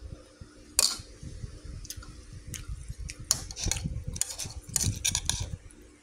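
Metal spoon clinking and scraping against a bowl while mixing rice: one sharp clink about a second in, then a quick run of clinks and scrapes in the second half.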